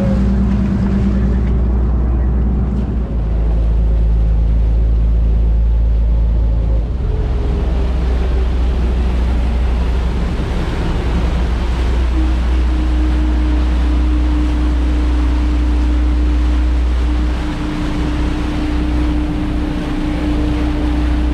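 A fishing boat's engines running steadily under way: a deep, constant rumble with a whining tone that shifts pitch a couple of times. From about seven seconds in, water rushing along the hull and wind noise grow louder as the boat gathers speed.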